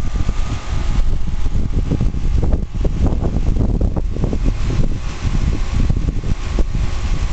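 Lennox 13ACX 2-ton central air conditioner's outdoor condensing unit running at full output, its condenser fan turning. A steady machine hum over an uneven low rumble.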